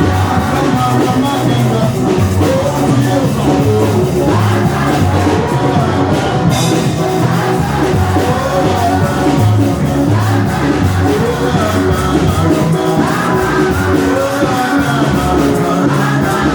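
Loud live band music with singing, a steady bass beat and some shouting from the congregation.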